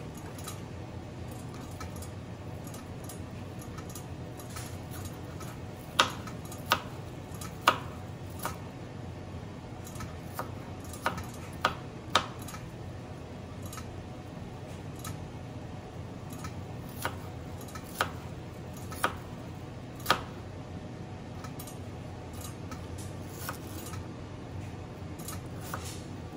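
Kitchen knife slicing an onion on a plastic cutting board: irregular sharp knocks as the blade meets the board, some in quick clusters, over a low steady hum.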